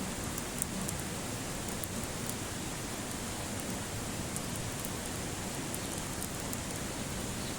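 Wood campfire burning: a steady hiss with faint scattered crackles.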